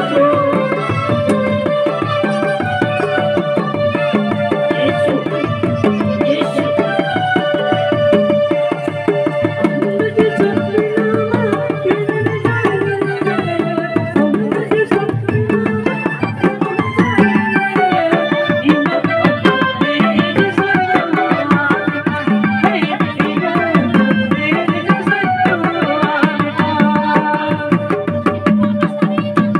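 Devotional song accompaniment: a hand drum keeps a quick, even rhythm under an electronic keyboard melody with one held note.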